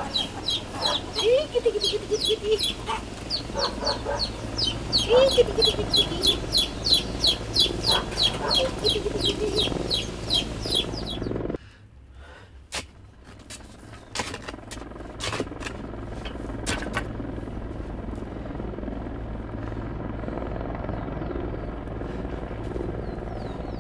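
Chickens clucking, a quick run of short high calls with a few lower drawn-out hen calls, until the sound cuts off about halfway through. After that comes a quieter steady low outdoor hum with a few scattered clicks.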